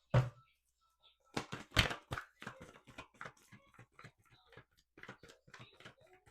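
A deck of oracle cards being shuffled and handled: a quick, uneven run of soft taps, slaps and rustles, loudest about a second and a half in.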